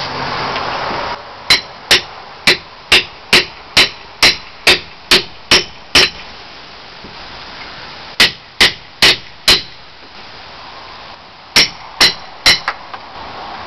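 Hammer blows, about two a second in three runs: eleven strikes, a pause, four more, another pause, then three. Each blow is sharp and has a short metallic ring.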